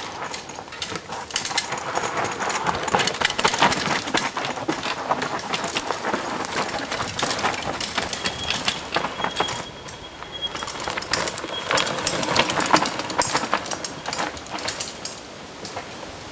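Mountain bikes riding past on a dry dirt forest trail: a dense crackling rattle of tyres on dirt and leaves and the bikes themselves, loud in two stretches with a dip just before ten seconds in.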